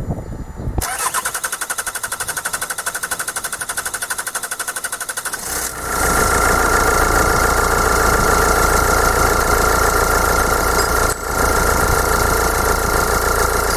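Hyundai-Kia CRDi Bosch common-rail diesel being cranked by the starter with a fast even pulsing for about five seconds, then catching and settling into a steady idle that ticks nicely. It is the first start after the rail pressure control valve behind the P0088 limp mode was replaced, with air still being bled from the fuel system. The running briefly dips once about eleven seconds in.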